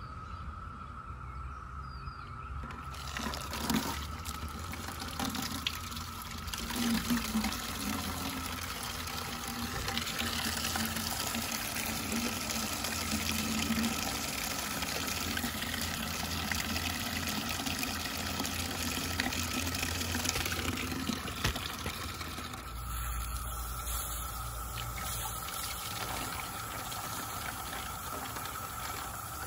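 Evapo-Rust rust remover draining in a steady stream out of the 1952 Dodge M37 engine block, pouring and splashing into a paint-filter funnel over a bucket. The sound changes a little past two-thirds of the way through.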